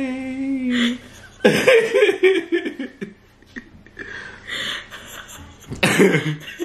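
A voice holding one steady note that stops about a second in, followed by laughter, with a second burst of laughter near the end.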